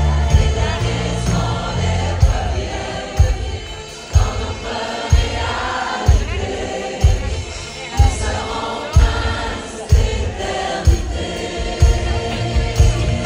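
Live concert music heard from within the audience: several voices singing over a bass drum beating about once a second.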